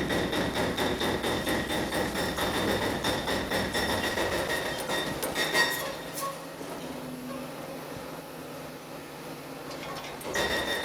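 Demolition machinery at work: a dense clatter and crash of rubble and debris for about six seconds, over a steady high whine. It drops to a quieter machine rumble, then the clatter starts up again near the end.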